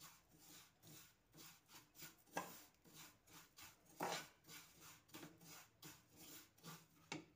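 A spatula stirring and scraping dry vermicelli roasting in ghee in a frying pan: faint, quick scraping strokes, about three a second.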